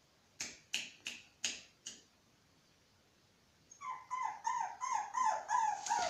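Puppy whimpering in a quick run of short whines, each falling in pitch, about three a second, over the last two seconds. Earlier, five short sharp snaps come about a third of a second apart.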